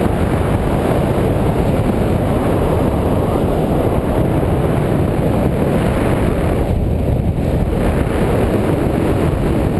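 Loud, steady wind rushing over the microphone of a pole-mounted camera during tandem paragliding flight, a dense deep rush with no break.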